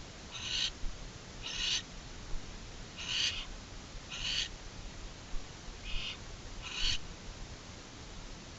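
Barn owls giving a series of six short, raspy hissing calls, about one a second, as a mated pair exchange calls in their nest box.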